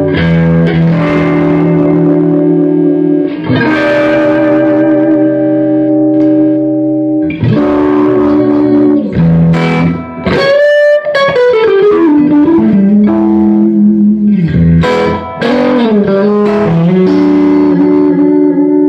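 Electric guitar, a K-Line Springfield with Rocket Fire pickups, played through a hand-wired Longbeard Tritone 6V6 tube combo amp with its soul switch on 'tight' (blackface voicing) at moderate volume. Picked chords ring out, and about ten seconds in notes slide down in pitch.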